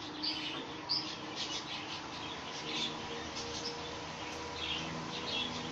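Small birds chirping in short, scattered calls, over faint clicks and a steady low hum.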